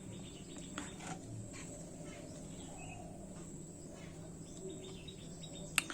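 Quiet background with faint bird chirps and a few light clicks as small parts are handled, then one sharper click near the end.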